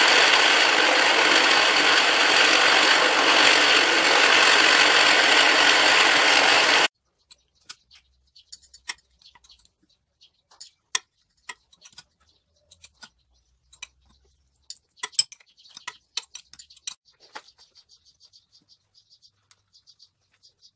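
A loud steady rushing noise that cuts off abruptly after about seven seconds, then scattered light metallic clicks and taps as the indexing pin and steel plates of a homemade dividing head are handled.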